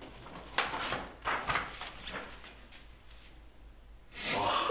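A few soft knocks and rustles, then a near-quiet stretch, and near the end a group of people starting to laugh.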